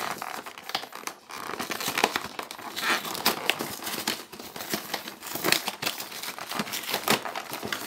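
Plastic and cardboard packaging of a card gift box crinkling and crackling as it is handled and opened, with a steady run of irregular rustles and sharp little snaps.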